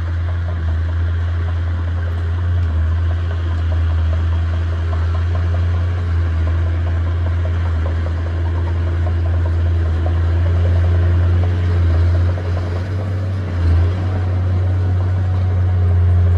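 Heavy earthmoving machine's diesel engine running steadily with a deep drone, dipping and rising briefly near the end.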